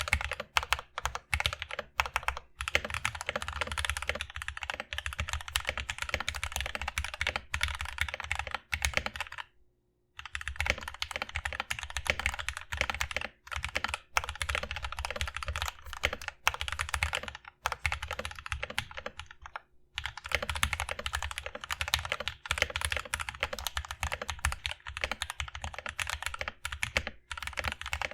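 Fast continuous typing on a mechanical keyboard with linear switches in an aluminum plate: a dense run of keystroke clacks, pausing briefly about a third of the way in before resuming.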